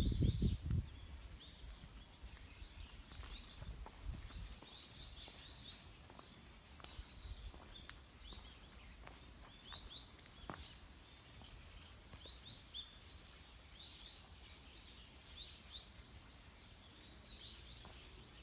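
Small birds chirping over and over in short clusters over quiet outdoor ambience, with a low rumble on the microphone in the first second and a few light clicks.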